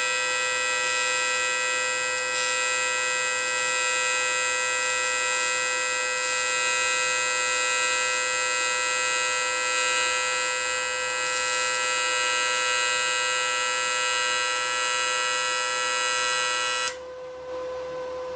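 Aluminum TIG welding arc buzzing steadily through a practice bead. It cuts off suddenly about seventeen seconds in when the arc is stopped, leaving the welder's quieter steady hum.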